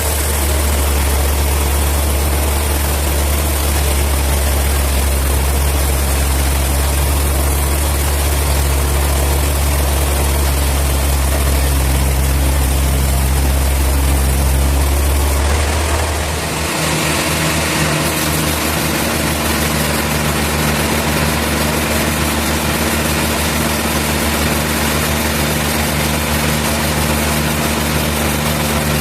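Sawmill machinery running steadily with a deep engine hum. About halfway through, the sound changes: the deepest hum drops away and a higher-pitched hum takes over.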